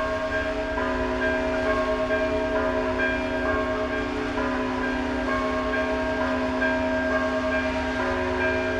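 Russian Orthodox church bells ringing in a continuous peal: several bells sounding together, the higher ones struck again and again over lower tones that keep ringing.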